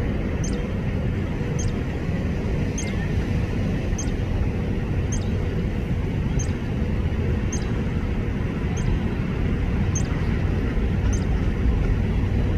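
A small songbird repeats a single short, high chirp about every second, over a loud, steady low rumble of outdoor background noise.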